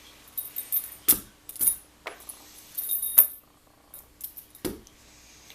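Small metal parts clinking and jingling as an opened padlock and its keys are handled: a string of sharp clicks with a bright metallic ring, in two clusters, then a single click near the end.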